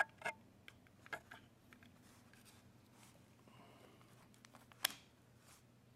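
Faint handling sounds as a cable's small plug is pushed into a Goal Zero Guide 10 Plus AA battery pack: a few light plastic clicks and rubs, with one sharper click about five seconds in, over a low steady hum.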